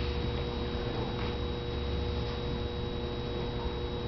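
Steady electrical room hum: a low drone with a few constant tones, including a thin high whine, and one faint tap about a second in.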